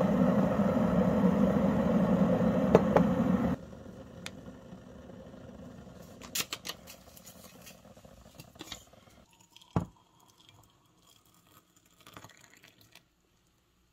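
Electric kettle heating water, a loud steady noise that stops abruptly after about three and a half seconds. Then a few light clicks and a single knock near ten seconds in, and hot water poured from the kettle into a ceramic mug near the end.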